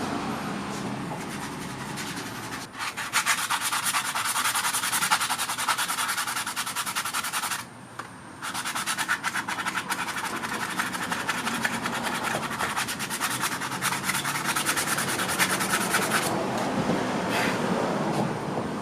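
A fast, dense rasping scrape, like hard rubbing or sanding. It starts a few seconds in, breaks off briefly around the middle, and stops a couple of seconds before the end.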